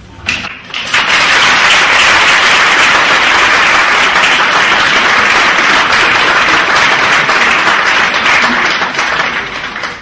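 Theatre audience applauding: the clapping swells in about a second in, holds steady and loud, and tails off near the end.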